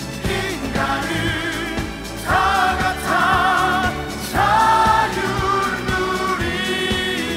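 Musical theatre song: singers hold a series of long, wavering notes, each lasting a second or two, over orchestral backing.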